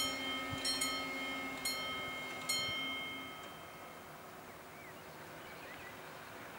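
Level crossing warning bell striking about once a second, the last stroke a couple of seconds in, then ringing out and falling silent, with the crossing barriers down across the road.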